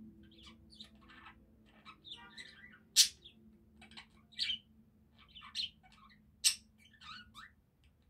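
Budgerigar warbling: a run of short chirps and chatter, with two sharp, loud calls, about three seconds in and again about six and a half seconds in.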